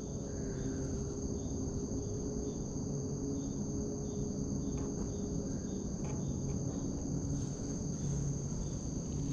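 Steady high-pitched chorus of insects, with a faint low hum beneath.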